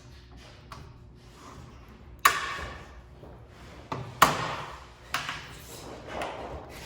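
Plastic retaining clips of an Infiniti G37x rear spoiler snapping loose as the spoiler is wiggled off the trunk lid: sharp cracks about two seconds in, a pair around four seconds, another after five, and softer ones between. It sounds like something breaking, but it's not; the clips are only letting go.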